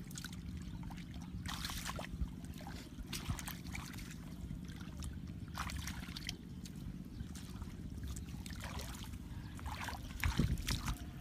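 Hands stirring and splashing in shallow muddy water in short, irregular bursts over a steady low rumble. Near the end come louder low thumps of bare feet squelching through the mud.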